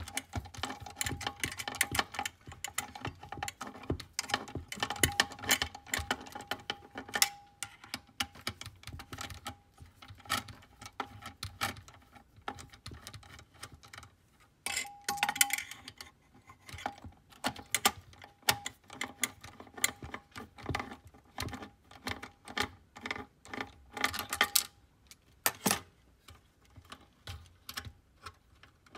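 Irregular clicking and rattling of small metal and plastic parts as hands work inside an opened Kodak Carousel 850H slide projector around the focus motor, its wiring and brackets. A faint steady tone runs underneath.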